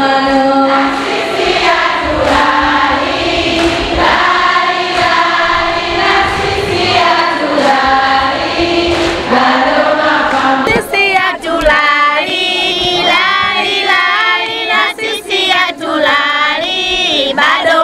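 A group of women singing together in chorus. About eleven seconds in, the sound cuts abruptly to a sparser stretch of group singing with short breaks.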